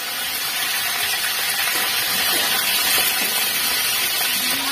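Slices of lapu-lapu (grouper) sizzling in hot oil in a wok, a steady hiss, being fried only until half-cooked.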